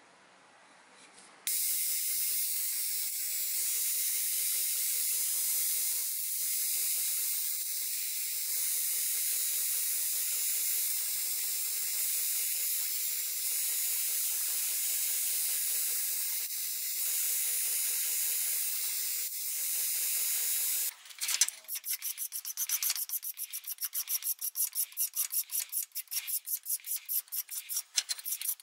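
A steady high hiss that cuts off suddenly about 21 seconds in, followed by a hand file rasping back and forth across the steel hammer head in quick even strokes, about three a second.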